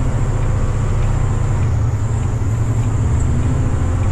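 Semi-truck's diesel engine and road noise heard from inside the cab while driving: a steady low drone, with a faint high whine over it.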